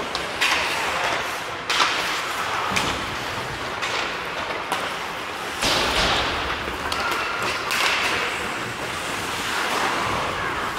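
Ice hockey play: skate blades scraping and hissing on the ice, with several sharp knocks of sticks and puck.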